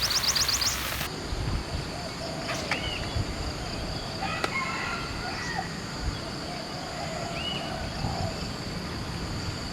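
Roosters crowing faintly, with a long wavering crow over several seconds, over a steady high insect drone. A few short bird calls come in between.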